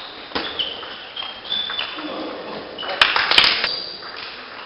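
Table tennis rally in a large hall: sharp clicks of the ball off the bats and table, with short high squeaks of shoes on the sports floor. A loud burst of noise comes about three seconds in.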